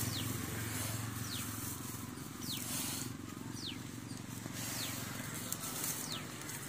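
Rural outdoor ambience: a short, high falling whistle repeats about once a second over a low steady hum.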